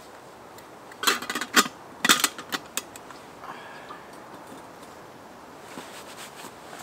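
Small metal camp pot and lid clinking and clattering as they are handled, in two quick clusters about one and two seconds in.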